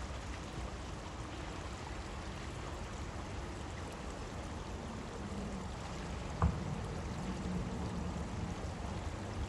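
A 4x4 wading through floodwater: a steady rush of water with the engine running low underneath. There is a single thump about six and a half seconds in.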